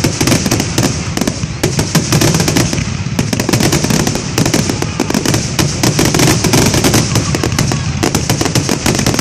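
Fireworks display: a dense, continuous barrage of shell bursts and crackling, many bangs a second with no pause.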